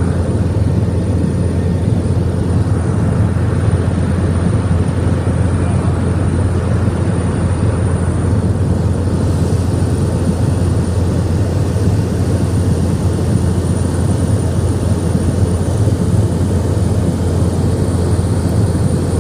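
Seaplane's propeller engine running steadily in flight, a constant low drone heard from inside the cabin.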